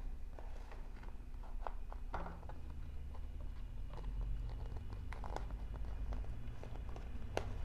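Light scattered clicks and taps of a transparent conveyor belt being slid and fitted onto the upper pulley assembly of an LI-3050C belt conveyor, over a steady low hum.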